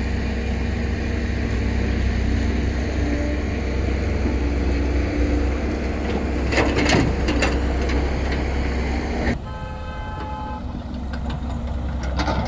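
Dump truck's diesel engine running steadily with a low rumble while under way. About nine seconds in the sound changes abruptly and a vehicle horn sounds briefly for about a second.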